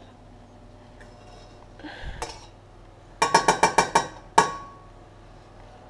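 A knife tapped quickly against the rim of a metal frying pan to knock butter off the blade: about seven sharp ringing clinks in a rapid run, then one more clink a moment later.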